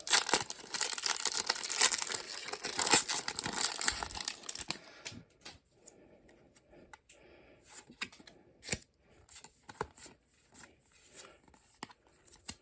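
A foil Pokémon booster pack wrapper is torn open by hand, a long crinkling tear lasting the first four or five seconds. Then come scattered faint clicks and rustles as the cards are handled.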